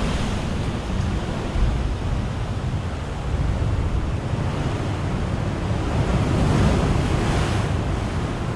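Steady rushing, buffeting noise of wind on the microphone, heaviest in the low rumble, swelling and easing a little without any clear knocks or tones.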